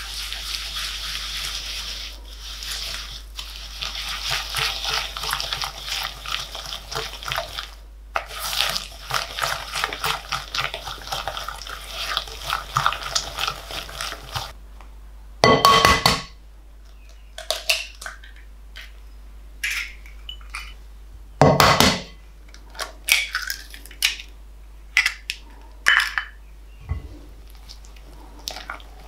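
Balloon whisk with coated wires beating butter and sugar in a glass bowl: a dense, rapid scraping and clicking of the wires against the glass for about the first fifteen seconds. After that come two loud knocks about six seconds apart and scattered short taps and scrapes of the whisk in the bowl.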